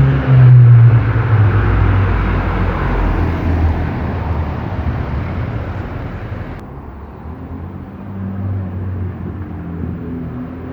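Renault Mégane RS 265's turbocharged 2.0-litre four-cylinder through an open Milltek exhaust with the muffler deleted and the catalytic converter kept. It is loud at first with a falling pitch, fades over several seconds, and then settles into a steadier, lower note.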